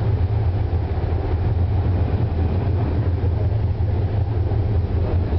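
Wuppertal Schwebebahn suspension railway car running along its overhead track: a steady low rumble, heard from inside the front cab.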